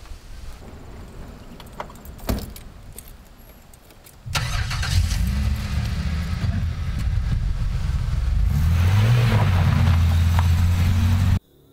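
A few clicks and knocks of a car door, then a sedan's engine starts about four seconds in and runs, rising in pitch near the end as the car pulls away; the sound cuts off suddenly just before the end.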